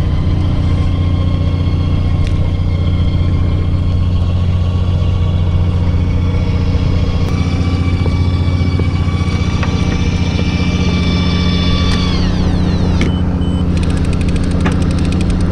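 A fishing boat's engine running steadily with a deep drone. A high whine comes in about seven seconds in and glides down to a stop about twelve seconds in, and rapid clicking follows near the end.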